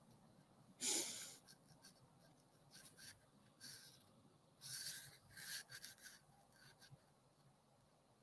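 Quiet room tone with a few faint, short rustles close to a wired earphone microphone: one about a second in, and a small cluster around five seconds.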